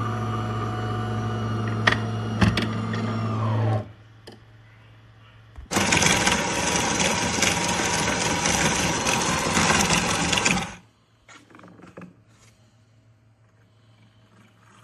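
De'Longhi Rivelia automatic espresso machine running: a steady mechanical hum that falls in pitch and stops about four seconds in, then about five seconds of a louder, noisy whir, followed by a few faint clicks.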